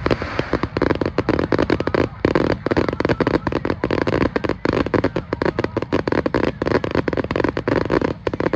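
Fireworks crackling: a dense, unbroken run of sharp pops and bangs, many a second.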